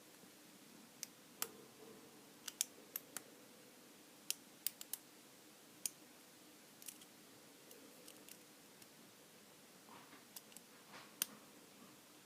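Small sharp metallic clicks, irregular and unevenly spaced, of a lock pick working the pin stack of a Brady Abus lockout padlock under light tension, some in quick pairs.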